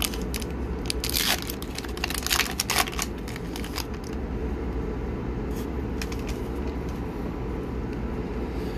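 Foil trading-card pack wrapper crinkling and crackling as it is torn open and the cards slid out, busiest in the first few seconds, then a few light rustles. A steady low hum runs underneath.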